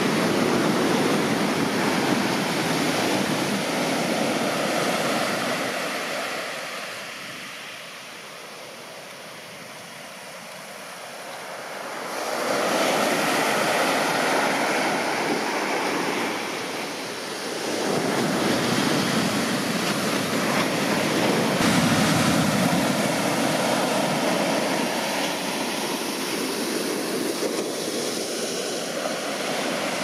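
Large ocean surf breaking and washing in, a steady rush of water. It sinks to a quieter lull partway through and surges back loudly about twelve seconds in.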